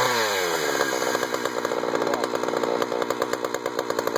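Jonsered 2091 93 cc two-stroke chainsaw running in a chainsaw mini mill. Its engine pitch dips and rises at the start, then settles into a rougher, rapidly pulsing running.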